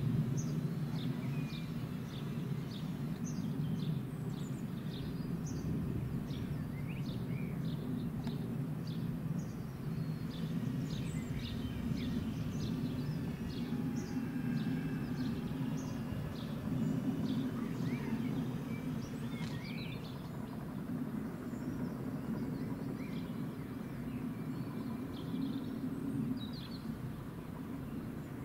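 Small birds chirping many times over a steady low rumble.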